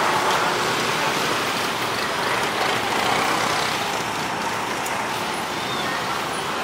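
Steady din of many scooter and motorcycle engines running together in a packed crowd of bikes.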